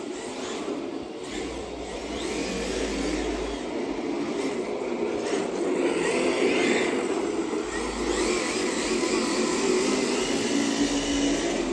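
Electric motor of a remote-control drift car whirring, its whine rising and falling in pitch as the throttle changes around the middle.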